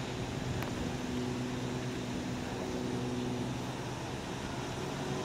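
Diesel-electric switcher locomotive's diesel engine running at a steady low speed as it rolls slowly, a constant low hum that holds one pitch. There is a single brief click about half a second in.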